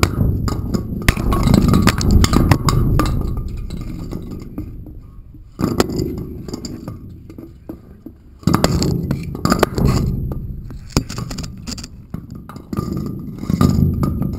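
A camera on a cord knocking and scraping against a rough stone wall: many sharp clicks and clinks over a low rumbling handling noise. It goes quieter from about four seconds in, then picks up again abruptly about eight and a half seconds in.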